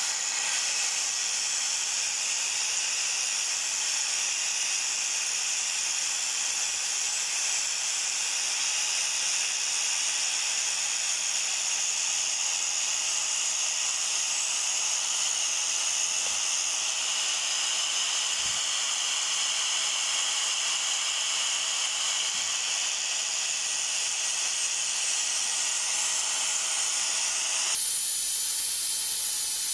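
INGCO angle grinder's disc grinding rust off a steel knife blade: a steady high hiss over a steady motor whine, which jumps suddenly louder and brighter near the end.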